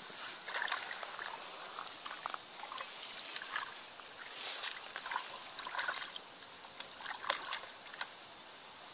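Irregular splashing and sloshing of shallow muddy water stirred by hands and rubber boots, mixed with rustling of dry grass and debris, with one sharp snap a little before the end.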